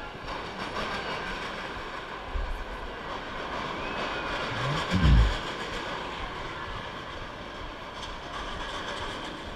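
Steady mechanical rumble of the Falcon's Fury drop tower's gondola being hoisted up the tower, heard from the seat. About halfway through, a brief low rising-and-falling sound is the loudest moment.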